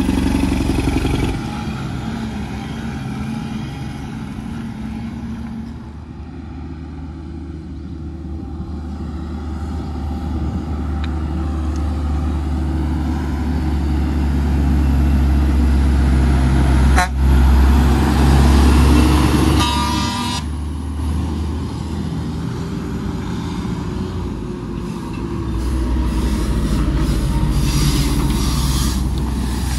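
Heavy truck's diesel engine running under load, growing louder for several seconds and then easing off. There is a sharp click about 17 seconds in and a brief horn toot about 20 seconds in.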